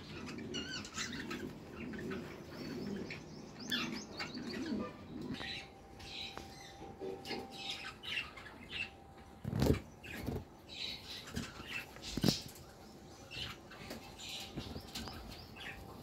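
Budgerigars chattering in quick, short chirps and warbles, with two loud thumps about ten and twelve seconds in.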